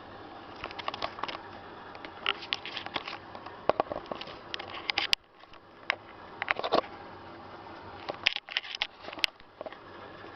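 Zanussi FL984CN front-loading washing machine on a 35° wash, its drum turning with a steady hum while the wet laundry and water inside splash and patter in irregular bursts of clicks. The hum drops out briefly twice.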